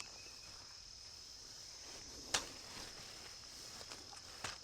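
Quiet woodland background with a steady high-pitched insect drone. A sharp click about two seconds in and a fainter one near the end.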